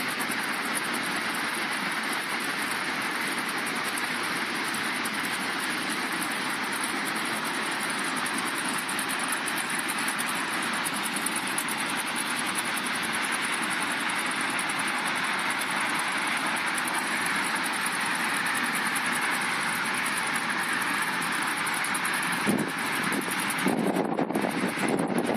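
Steady rushing of a dam's discharge jet: water blasting from an outlet and crashing into the river below. Near the end, gusts of wind buffet the microphone.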